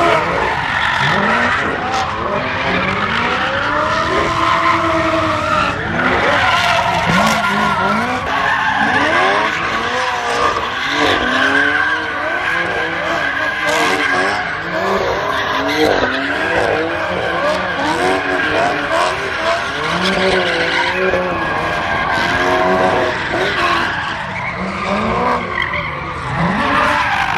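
Cars drifting on a skid pad: engines revving up and down again and again while the tyres squeal in a long, steady screech.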